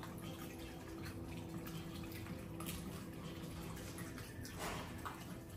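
Water trickling and dripping steadily, over a faint steady low hum. A brief louder swish comes about four and a half seconds in.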